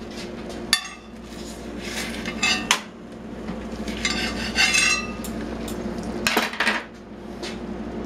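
Metal tongs clinking and scraping against a toaster oven's wire rack and small cast iron plate as a roasting red bell pepper is turned, with several sharp clinks.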